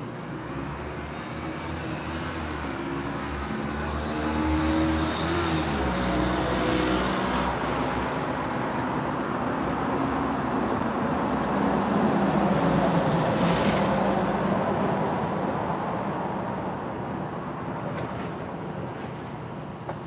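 A car passing on the street: its engine and tyre noise swell, are loudest in the middle, and fade away toward the end.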